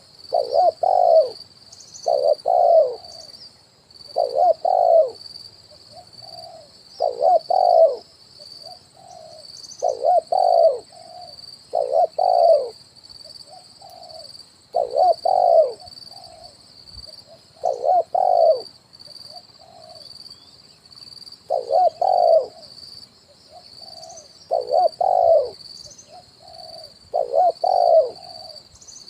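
Spotted dove (tekukur) cooing: a short coo phrase of two or three notes repeated about every two to three seconds, the 'kuk 1' song type used as a lure call for catching doves.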